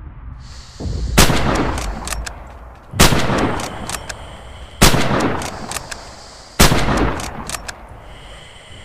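Mosin-Nagant M91/30 bolt-action rifle (7.62×54mmR) firing four loud shots a little under two seconds apart, each followed by a long echoing tail, with small clicks in between.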